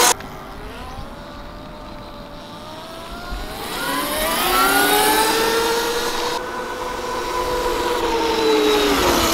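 OSET 20R electric trials motorcycle's motor whining under full throttle. The pitch rises as the bike picks up speed, holds steady, then falls away near the end.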